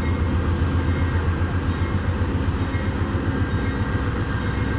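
Stopped Amtrak passenger train's diesel locomotive running steadily at a standstill, a continuous low rumble.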